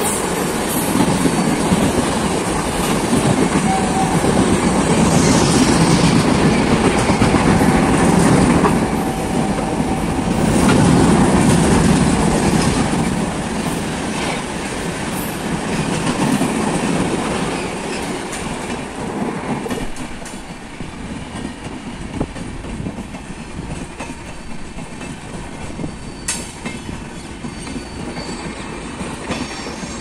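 An express passenger train running through the station at speed close by: a loud, steady rush and clatter of coach wheels over the rails. It eases off and dies down about twenty seconds in, leaving the lower rumble of a second train drawing in on the far line.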